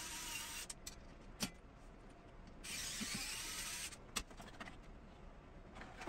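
Small cordless screwdriver running in two short spells of about a second each, near the start and about three seconds in, driving screws into the rack, with a few light clicks of metal parts between.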